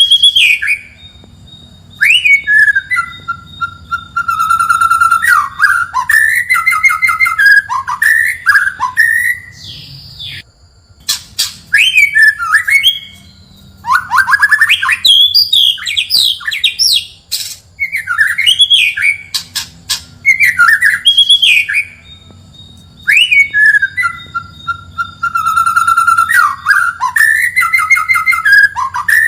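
White-rumped shama (murai batu) singing: loud, varied whistled phrases with rising and falling notes and quick trills, broken by short pauses, the same phrase sequence coming round again near the end.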